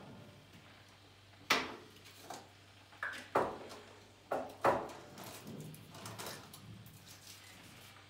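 Jars, lids and cups being handled on a kitchen counter: a string of sharp clicks and knocks, about six in the space of four seconds, then fainter rattling.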